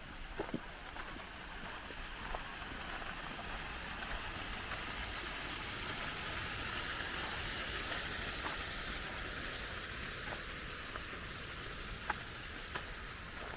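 A steady rushing hiss that swells over several seconds toward the middle and then eases off, with a few scattered light clicks.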